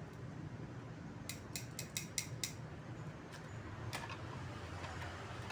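Metal cooking tongs clicking at a pan: a quick run of about seven sharp clicks a little over a second in, then a few single clicks later, over a low steady background hum.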